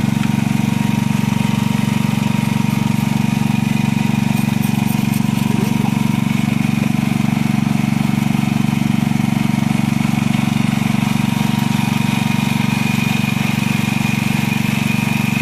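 A small engine running steadily at one constant speed, an even low hum that never changes pitch.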